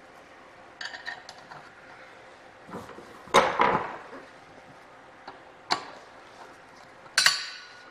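Metal parts of an aircraft wheel and brake assembly clinking and clanking as they are handled: a few separate knocks, the loudest a little past three seconds in, and a last clank near the end that rings briefly.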